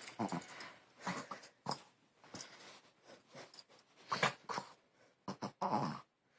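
A dog making a string of short, irregular grunting noises, pig-like, several in quick succession with uneven gaps.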